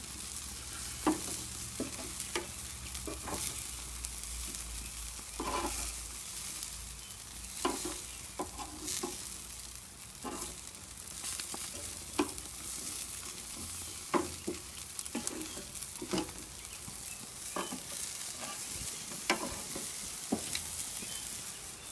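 Chicken wings sizzling on a gas grill, with scattered sharp clicks of metal tongs on the grate as the wings are picked up and set down one by one.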